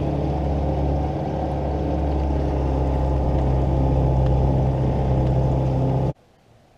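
Tohatsu outboard motor running at a steady speed with the boat under way. The sound cuts off suddenly about six seconds in.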